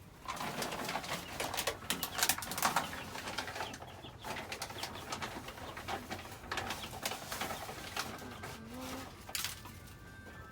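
Scoops of chick feed being poured into a feeder, the grains rattling and clicking in irregular bursts, with chicks calling.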